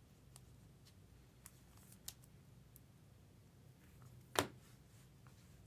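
Trading cards being handled and flipped through, making faint light clicks and rustles, with one sharper snap about four seconds in.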